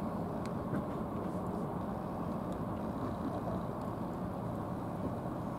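Steady low outdoor rumble, with a few faint clicks in the first second or so.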